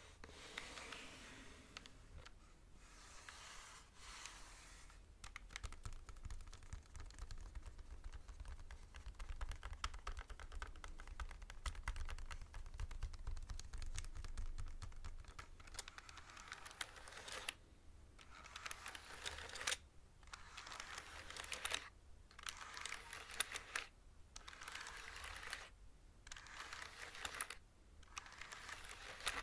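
Fast typing on a computer keyboard, a dense run of key clicks through the middle. Before and after it come short stretches of soft brushing hiss from hands moving over the keys.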